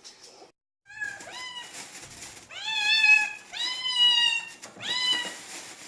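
A cat meowing repeatedly: about five meows beginning about a second in, each rising then falling in pitch, the two in the middle drawn out longest.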